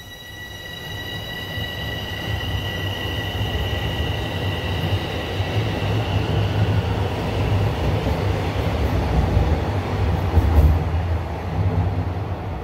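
Bombardier Toronto Rocket subway train running along the track, a heavy rumble of wheels on rail that swells over the first couple of seconds. Over the first half a steady high whine sounds above the rumble and fades away.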